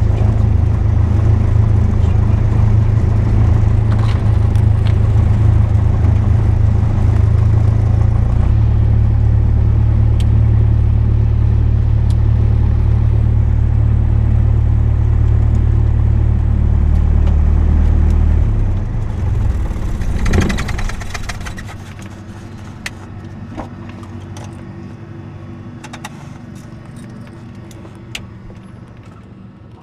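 Cessna 172 Skyhawk's piston engine idling, heard inside the cabin as a steady low drone. About two-thirds of the way through it winds down and stops with a brief shudder, which is the engine being shut down, leaving a quieter hiss with scattered clicks.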